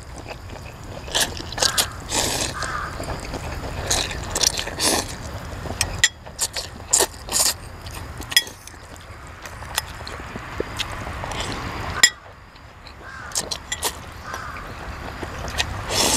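Close-up eating sounds: noodles being slurped and chewed, with frequent wet smacks and sharp clicks of a metal fork and spoon against a glass bowl.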